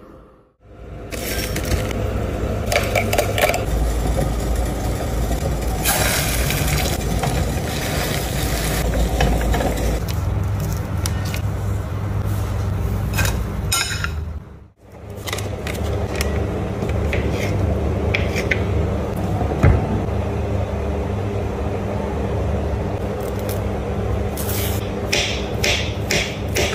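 Kitchen food-preparation sounds: scraping and light knocks of utensils over a steady low hum. Near the end come a run of quick knife cuts through a banana onto a wooden cutting board.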